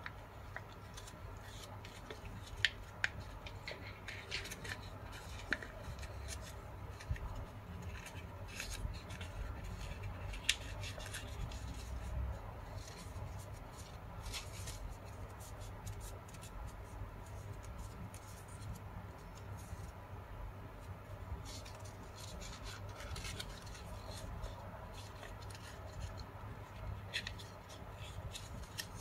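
A square sheet of origami paper being folded and creased by hand: irregular rustling and small crinkling clicks as the paper is pressed and bent, over a faint low hum.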